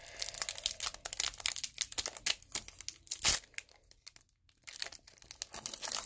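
Foil wrapper of a Score football card pack crinkling and tearing in the hands as it is opened: a busy, rapid crackle with one louder crackle a little past three seconds in and a short lull about a second later.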